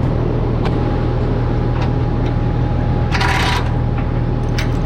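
Heavy-equipment diesel engine running steadily at a constant low rumble, with a few light clicks and a brief hiss about three seconds in.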